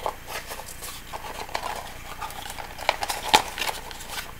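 Small cardboard box being handled and opened by hand: light rustling and scraping of cardboard, with a couple of sharper taps about three seconds in.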